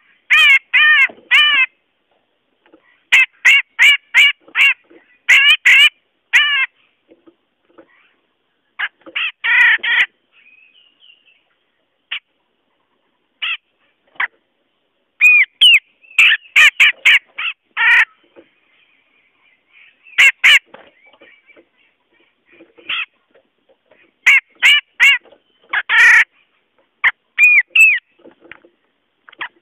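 Cucak jenggot (grey-cheeked bulbul) calling, a lure-call recording. Quick runs of three to five sharp notes, repeated with pauses of a second or two.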